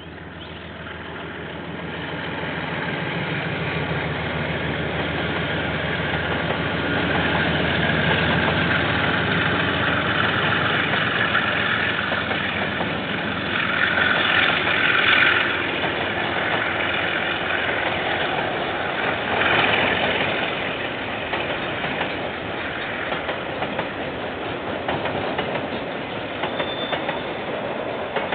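Diesel-hauled KiwiRail freight train passing. The locomotive's engine rumble builds over the first few seconds, then a long string of container wagons rolls by, wheels clattering on the rails. Brief louder high-pitched peaks come about halfway and two-thirds through.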